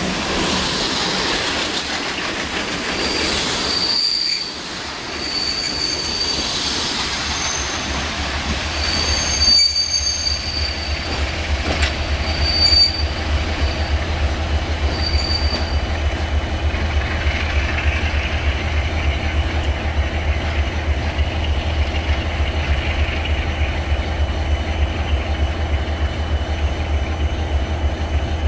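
Passenger coaches rolling over station points, their wheels squealing high-pitched on and off through the first half with clatter over rail joints. From about nine seconds in, a diesel engine's low, steady throb runs underneath and becomes the loudest sound.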